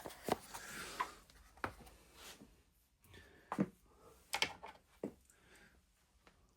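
Small hard parts and their container being handled on a tabletop: a series of sharp clicks and knocks, about half a dozen spread irregularly, over light rustling.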